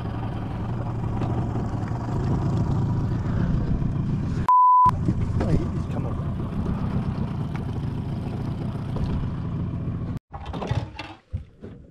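A boat's outboard motor running steadily. About four and a half seconds in, a short single-pitch censor bleep replaces the audio. Near the end the motor sound cuts off abruptly and a few irregular knocks and rattles follow.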